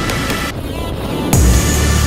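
Electronic dance music with a steady beat. The high end drops out for under a second, then a heavy deep bass comes in about a second and a half in.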